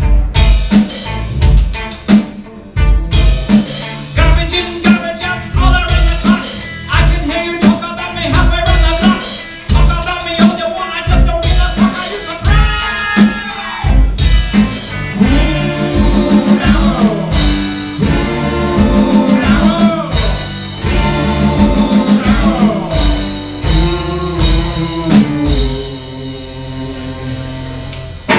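Live band music: a drum kit keeping a steady beat under guitars, violin and cello, with gliding lead lines around the middle and a thinner, quieter passage near the end.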